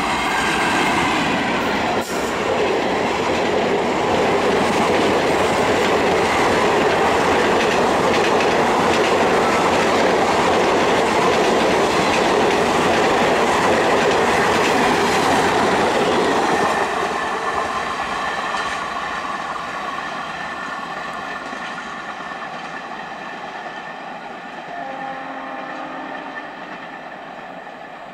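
WAP-4 electric locomotive and its passenger coaches passing close at speed, wheels clattering over the rail joints. The loud passing noise eases off about two-thirds of the way through and fades steadily as the train draws away.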